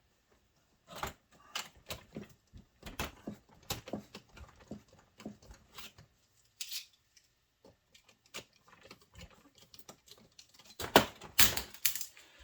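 Scattered light clicks and taps from a plastic RC scale crawler being handled, with a louder cluster of knocks near the end.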